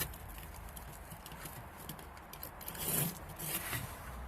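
Scattered light clicks and knocks, with a short, louder scrape about three seconds in.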